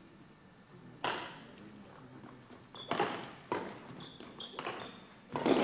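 Badminton rally: about five sharp racket-on-shuttlecock hits, one to two seconds apart, echoing in the hall, starting about a second in. Short high squeaks of players' shoes on the wooden court fall between the hits.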